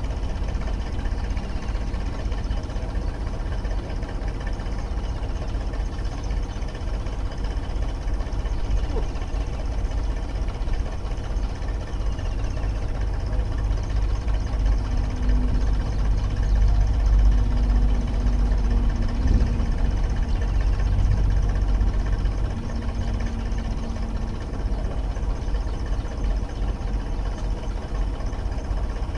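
Tractor's diesel engine idling steadily, with a low, even running note that grows a little louder around the middle.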